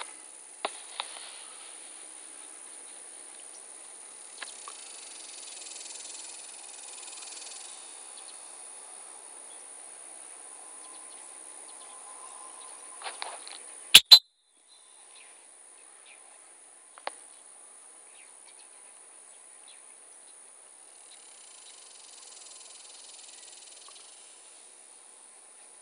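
Insects singing in the field grass: a steady high-pitched trill throughout, with a chorus that swells and fades twice. About halfway through come two loud sharp knocks close together, then a brief gap in the sound.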